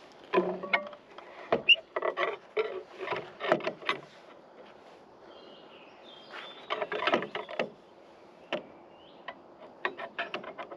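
Steel reinforcing bars being bent into stirrups on a stirrup bender: irregular clusters of metallic clicks and clanks, with short pauses between them.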